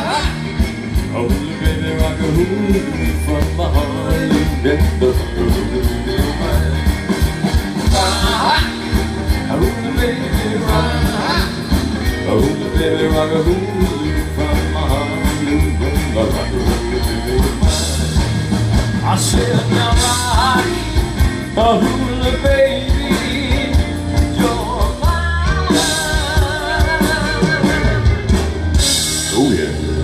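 A rock band playing live through a PA: drum kit keeping a steady beat, with electric guitar, keyboards and a singing voice.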